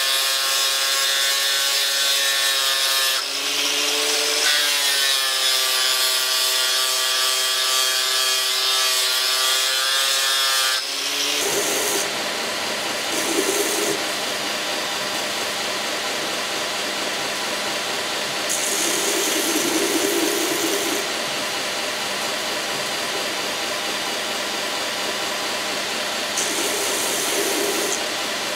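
Angle grinder with a sanding disc running and sanding, a high steady whine whose pitch sags under load a few seconds in and then recovers. About eleven seconds in it gives way to a belt grinder running, with a small handle part pressed to the belt three times in short, louder grinding passes.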